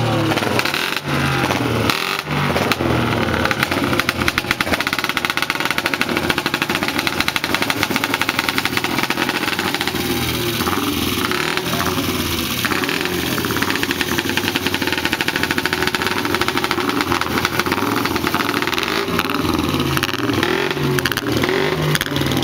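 Several vintage racing motorcycle engines running close by, their firing pulses overlapping throughout, among them a Velocette KTT Mk VIII single-cylinder four-stroke.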